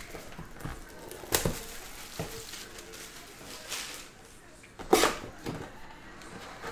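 Cardboard trading-card hobby box being handled and opened, with soft scuffs of cardboard and foil packs and two sharp knocks or rips, the louder one about five seconds in.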